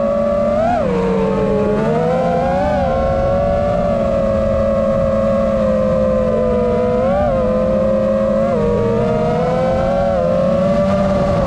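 FPV quadcopter's motors and propellers whining steadily, the pitch briefly rising with throttle punches about four times.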